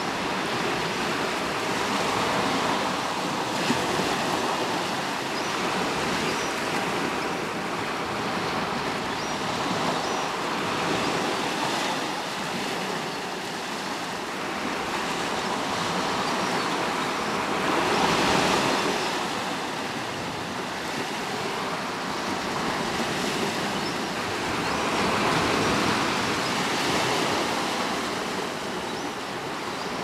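Sea washing against the rocks of a cove: a steady surf hiss that swells and ebbs every several seconds, loudest a little past halfway.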